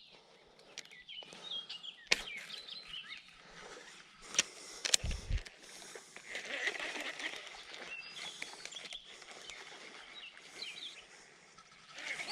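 Small birds chirping and calling repeatedly over a steady outdoor background, with a few sharp clicks about two and four and a half seconds in and a short low thump around five seconds in.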